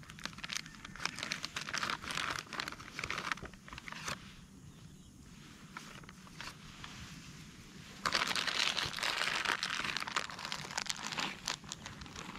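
Crinkling, rustling handling noise in two spells, the second starting about eight seconds in and louder.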